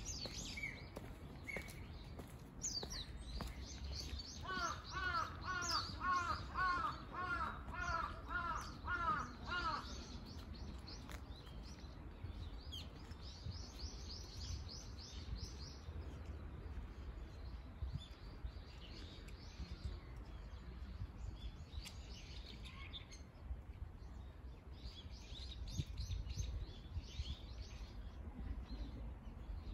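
Wild birds calling in the park: a run of about ten quick, evenly repeated calls between about four and ten seconds in, over high chirping and twittering from small birds. Faint footsteps on stone paving run underneath.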